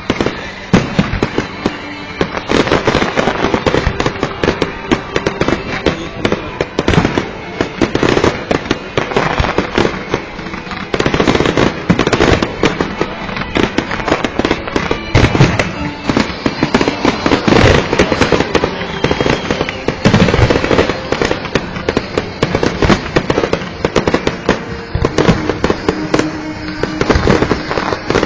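Fireworks display: a dense, continuous run of bangs and crackling bursts, one on top of another.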